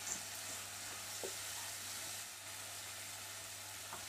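Vegetables (potato, peas and onion) sizzling quietly in a non-stick kadhai as a spatula stirs them, with a few light spatula taps.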